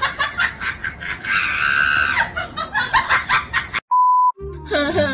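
Busy comedy backing track with rapid percussive hits and a held high note in the middle, cut off about four seconds in by a half-second 1 kHz censor bleep covering a swear word. A voice starts right after it, near the end.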